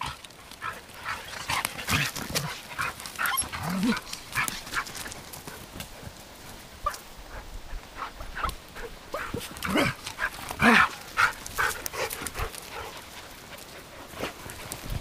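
Samoyed puppies and adult Samoyeds playing, with many short, high yips and squeals, busiest about two to four seconds in and again about ten to eleven seconds in.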